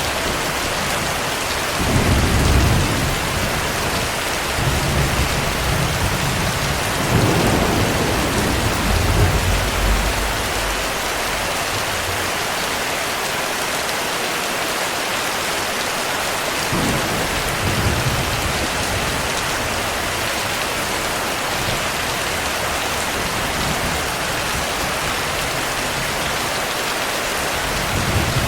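Heavy rain falling steadily, with low rolls of thunder: a short one about two seconds in, a longer rumble from about five to ten seconds, and another near eighteen seconds.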